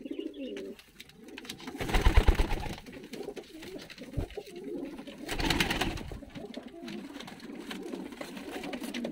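Domestic pigeons cooing. Two louder rustling bursts come about two seconds and five and a half seconds in.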